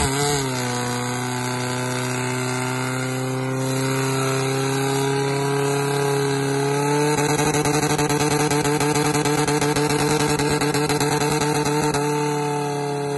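Portable fire pump's petrol engine running flat out while pumping water into the attack hoses. Its note dips briefly as the pump takes up the load, then holds steady, rising slightly about seven seconds in.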